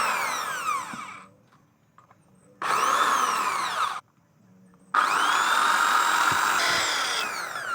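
Electric power tool motor run in three bursts. Each time its whine climbs as it spins up, then falls away as it winds down after release; the last run is the longest.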